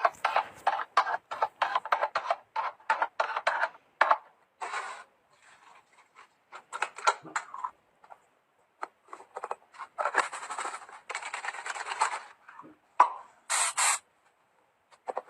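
Plastic containers and food packaging being handled: a quick run of clicks and knocks for about the first four seconds, then scattered rubs and two longer bouts of rustling, and a short high hiss near the end.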